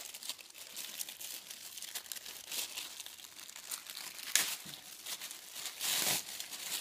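Thin HDPE plastic accessory bag crinkling and crackling as hands tear it open and pull the opening apart, with louder crackles about four and a half and six seconds in.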